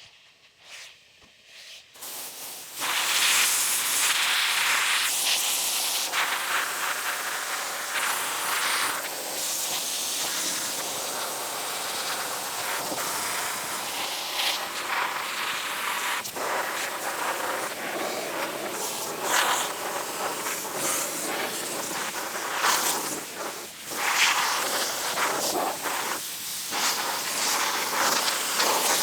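Sandblaster blasting abrasive onto the rusty steel bottom of a 1928 Ford Model A door: a loud, steady hiss of air and grit. It starts with a couple of short bursts, then runs continuously from about three seconds in, with brief dips now and then.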